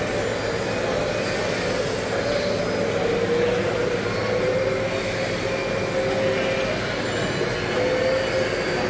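Radio-controlled scale construction machines running: a steady motor whine that slowly rises and falls in pitch, over a continuous background din.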